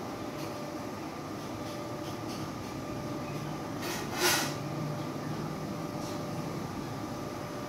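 Steady background hum with a brief rushing burst of noise a little past halfway through; the mantis feeding makes no audible sound.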